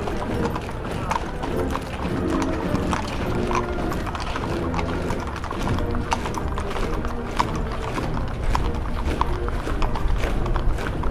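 Orchestral sound-effect music: held low chords that shift in pitch every second or so, over a rapid, irregular tapping of percussion.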